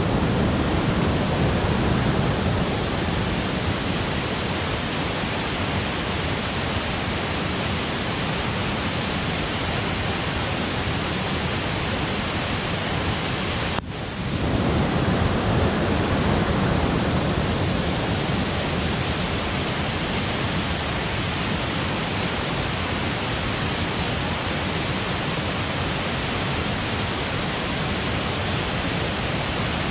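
Rushing mountain stream pouring over rocks: a steady, loud rush of water.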